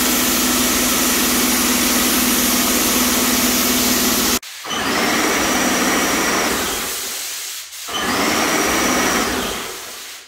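Wagner Control Pro 250M electric paint sprayer running and spraying: a steady motor hum with hiss that stops abruptly about four seconds in. Two shorter bursts of spraying follow, each trailing off.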